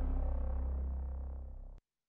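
Closing music of a TV programme's logo ident, sustained tones over a deep bass, fading down and then cutting off abruptly near the end, leaving silence.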